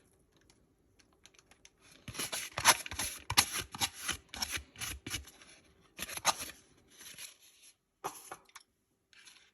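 Irregular crackling and clicking as food containers and packaging are handled while nachos are topped. There is a dense run of it from about two seconds in, then two short bursts near the end.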